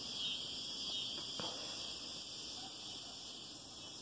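Crickets chirping steadily in the background, a continuous high trilling. There is a single faint click about a second and a half in.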